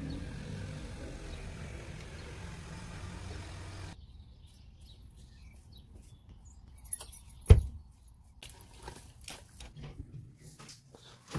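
Steady low outdoor rumble for about four seconds, which then drops away to quieter stretches with a few light clicks. About halfway through comes one loud, sharp thump: a Peugeot 3008's door being shut.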